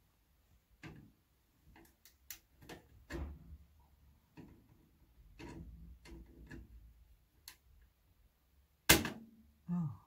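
Hands working on a steel computer case: scattered clicks, knocks and rattles of metal parts, with a loud sharp knock about nine seconds in.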